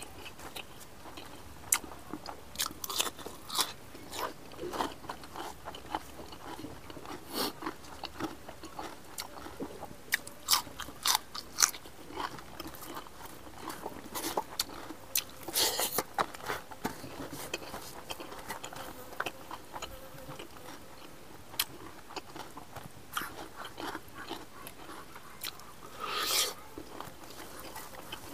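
Close-miked chewing and eating sounds: a man eating rice by hand, with irregular short wet mouth clicks and crunches as he chews.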